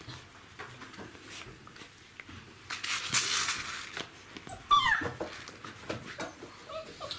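Czechoslovakian wolfdog puppies at play: a noisy rustle for about a second, then a puppy gives one short, high yelp that falls sharply in pitch, about two-thirds of the way in, among small scattered clicks.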